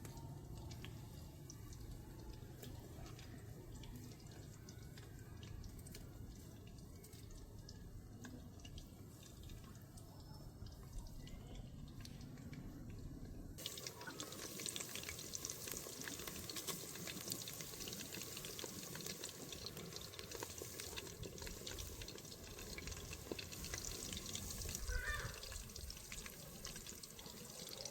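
Hands mixing chopped potatoes into a wet meat-and-flour mixture: soft squelching, rustling and small clicks. The sound changes abruptly about halfway through.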